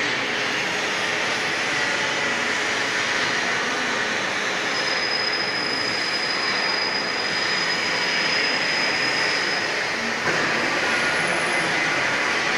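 Bar-fed automatic lathes running: a steady, loud mechanical noise, with a thin high-pitched whine for a few seconds in the middle and a brief higher squeal near the end.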